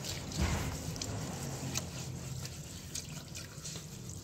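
A hand scrubbing soapy water over a steel wheel rim, with wet rubbing and dripping. The suds are there to wash off leaked gear oil and grease.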